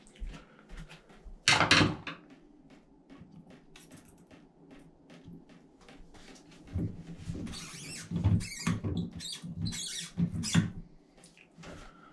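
Handling noise as hands work at a chrome tub/shower faucet knob: a run of knocks, rubs and squeaks, heaviest in the second half, with one louder knock or rustle about a second and a half in.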